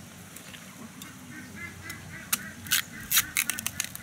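Coconut palm trunk being chopped and split open with a blade: a quick run of sharp cracks and knocks starting about two seconds in. Faint pitched calls sound in the background just before them.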